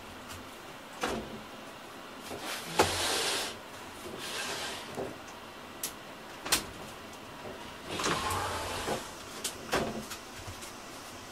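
A sliding window being opened amid handling noises: scattered clicks and knocks, with longer sliding scrapes about three seconds and eight seconds in.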